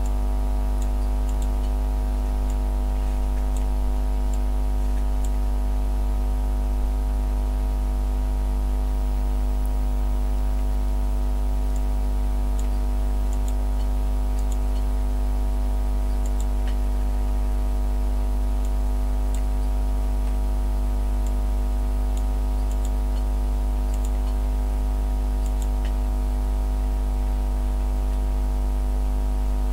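Engine running at a constant idle: a steady, unchanging low drone made of several fixed tones, with faint scattered ticks above it.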